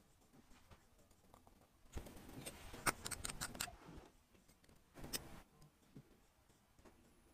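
Small metallic clicks and light scraping as steel tweezers and the parts of a Tissot Le Locle automatic watch are handled during assembly. The clicks cluster about two to four seconds in, with one sharper click near the middle, and a short burst of handling noise comes about five seconds in.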